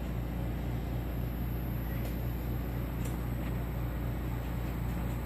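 Steady low hum with an even pulsing in its low tones, and a few faint ticks about two and three seconds in.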